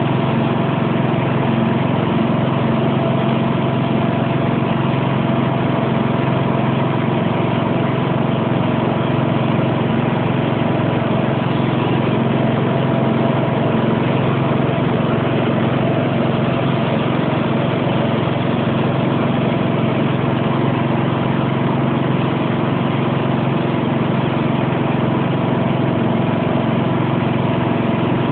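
Sentinel garden tractor's engine running steadily at one constant speed, with no revving or change in pitch.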